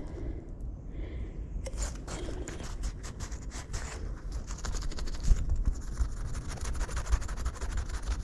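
Scraping and rubbing as a small china milk jug pulled from the water is cleaned of dirt. About two seconds in it starts as crackly strokes, then turns into a denser, steadier scratching.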